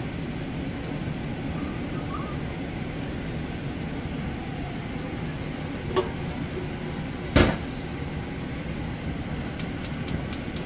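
Maple syrup boiling in a stainless steel pot over a gas burner, a steady low rumble. A sharp click comes about six seconds in, then a single louder knock, and a quick run of light ticks near the end.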